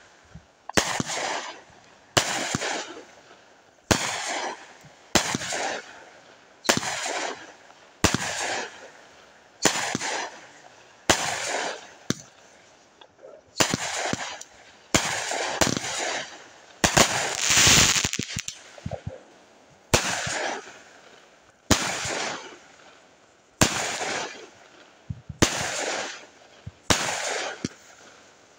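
200-gram consumer firework cakes, fused together, firing shot after shot, about one every second and a half. Each shot is a sharp bang that trails off, and one longer, louder burst comes a little past the middle.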